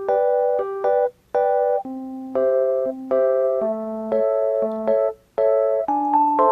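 Background music: electric piano playing chords over a simple bass line, with a steady rhythm.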